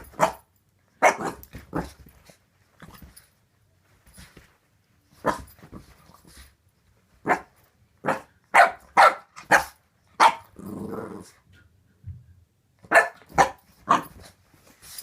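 Boxer puppy barking in short, sharp barks, some in quick runs of two or three, with a longer low growl about ten seconds in.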